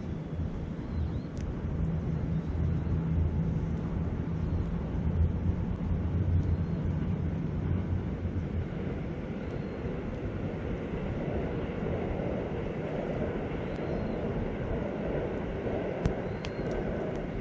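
Steady rushing of river water and wind, with a low, distant engine drone through the first half that then fades out. A few faint crackles from a wood campfire.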